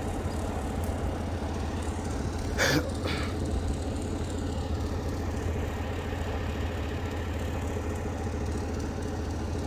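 A large engine idling steadily with a low, even hum. About two and a half seconds in there is one short, louder sound.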